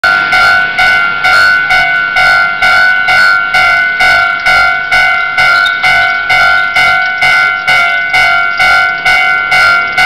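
Railway level crossing warning bell ringing loudly in a steady rhythm, a little over two strikes a second. Each strike is a bright ringing tone that fades before the next. It is the warning that a train is approaching and the barriers are coming down.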